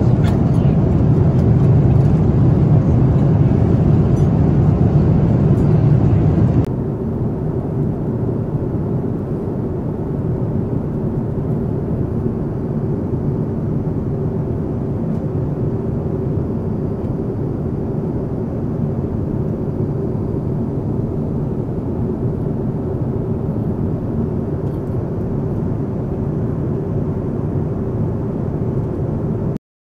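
Steady engine and airflow noise inside a Boeing 787-9 airliner cabin in flight. It is louder and brighter at first, drops suddenly to a quieter, duller level about seven seconds in, and cuts off just before the end.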